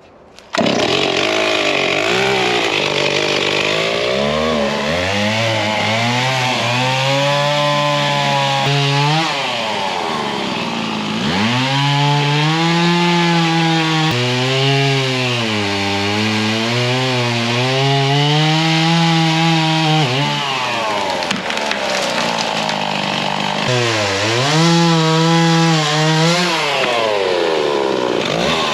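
Chainsaw engine running hard, its pitch climbing, holding and dropping back again and again as it works. It starts abruptly, with short drops about a third of the way in and again past two-thirds.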